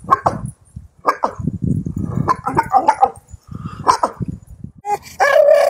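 A black pit bull–type dog giving odd, bark-like yowls with its head thrown back, in about four bursts. Just after 5 s a different, long held call begins.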